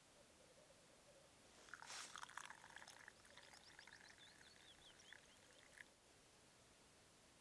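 Faint bird song against a near-silent background: a scratchy burst about two seconds in, then a run of quick high chirps lasting about three seconds.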